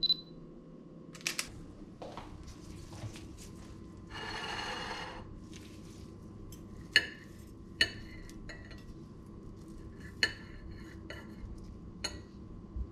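Knife and fork on a ceramic plate while cutting an omelette: about six sharp clinks with a short ring, the loudest about seven seconds in, with light scraping between them. A few clicks and a short rustle come before the cutting starts.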